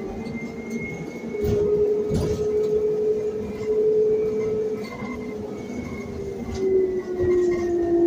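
Proterra Catalyst E2 battery-electric bus's UQM traction motor and two-speed drivetrain whining under way, heard inside the cabin over road noise and interior rattles. The whine holds fairly steady, then drops in pitch near the end.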